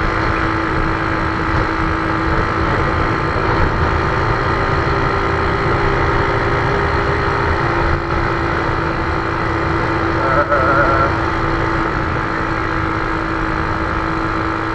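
Automatic motor scooter's small engine running steadily while cruising, its pitch shifting slightly about halfway through, over a low rumble of wind and road noise on the handlebar-mounted camera's microphone.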